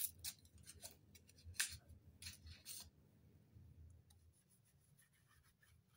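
Small alcohol prep pad packet being torn open by hand: a few crisp tearing and crinkling crackles in the first three seconds, then only faint rustling as the packet is pulled apart.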